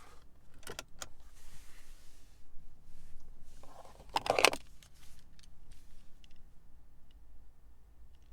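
Handling sounds: a few sharp clicks in the first second, a soft rushing hiss, then a brief jangling rattle about four seconds in, the loudest moment.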